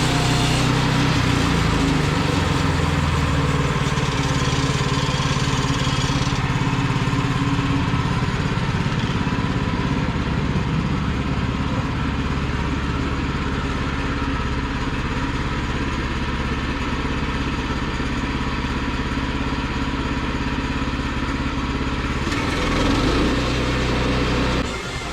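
Woodland Mills portable bandsaw sawmill's gasoline engine running steadily under load while the band blade resaws a board. Its sound changes about two to three seconds before the end.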